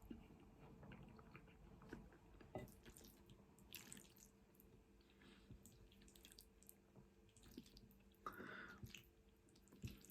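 Very quiet eating sounds: faint wet mouth clicks and chewing of pasta, with a couple of short, slightly louder smacks about four seconds in and again near the end.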